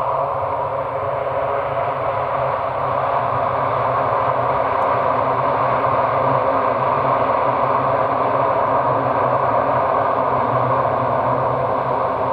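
Four Allison T56 turboprop engines of a Lockheed C-130T Hercules running with a steady drone, growing a little louder a few seconds in.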